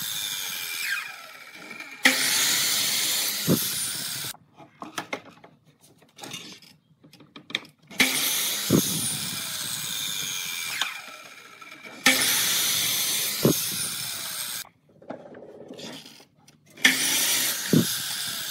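Sliding compound miter saw started four times, each run lasting two to three seconds as the blade cuts through a pine board. Each time the motor whine falls away as the blade spins down. Between cuts there are quiet gaps with knocks of boards being handled.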